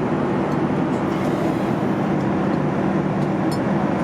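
Steady cabin noise inside a Boeing 737 MAX 8 airliner: an even rush of engine and airflow noise with a constant low hum.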